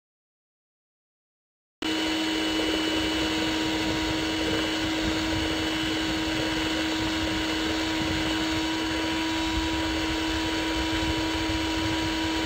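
Electric mixer running steadily at full speed, its beater whipping egg whites near the end of whipping, when they have turned to thick white foam. The motor starts abruptly about two seconds in after silence, with a constant hum and whine.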